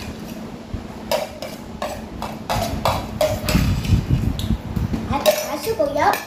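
Chopsticks and spoons clicking and clinking against ceramic bowls and plates while people eat, over a steady low hum, with a short voice sound near the end.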